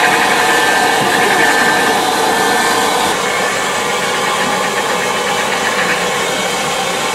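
Steam locomotive standing at the platform with steam hissing from it, a steady noisy hiss. About three seconds in the sound cuts to the steady running of an idling railway engine.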